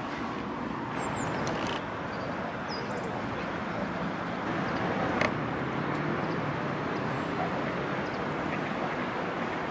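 Steady hum of city traffic, with a few brief high bird calls, some gliding down in pitch, about one to three seconds in, and a single sharp click about halfway through.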